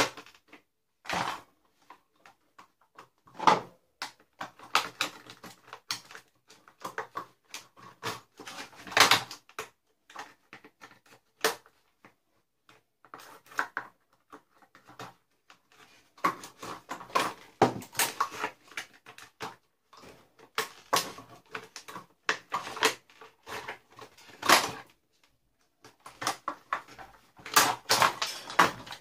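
Irregular knocks, clicks and clattering of hard plastic as a Dyson DC41 vacuum cleaner is broken apart, with a few louder strikes among the lighter rattles.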